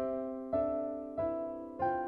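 Background music: soft piano playing slow, sustained chords, with a new chord struck roughly every two-thirds of a second.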